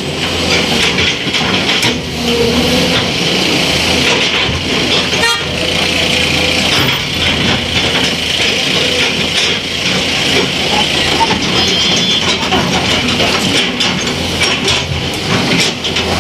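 Steady din of heavy road vehicles running, with constant clatter and a short horn toot about twelve seconds in.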